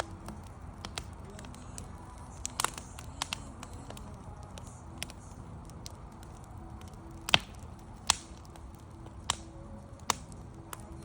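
Campfire of burning wood crackling, with irregular sharp pops over a low steady rumble; the loudest pop comes about seven seconds in.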